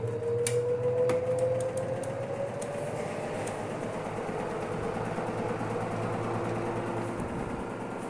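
LG front-loading washing machine drum turning, its seal squealing: a steady tone slowly rising in pitch that fades out about three seconds in, with a few light ticks in the first two seconds. After that only the even whir and rush of the turning drum.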